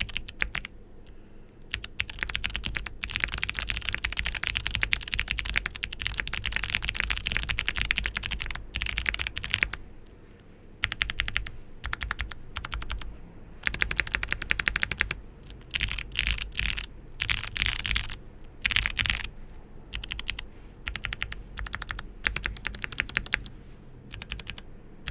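Mechanical keyboard fitted with stock, factory-lubed Gateron Melodic clicky switches, typed on in fast bursts of clacky keystrokes with short pauses between runs. The board is a Matrix 8x with an aluminium flex-cut plate and GMK keycaps.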